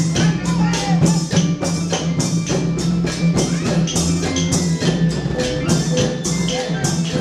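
Thai klong yao long-drum music: drums and small cymbals keeping a fast, steady beat of about four strokes a second.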